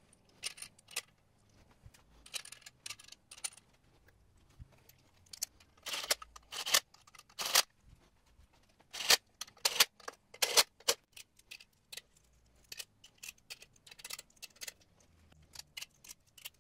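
Aluminum burst studs clicking and clinking as they are handled and set by hand into the bolt holes around a Roots supercharger's base: irregular light metallic clicks, loudest through the middle.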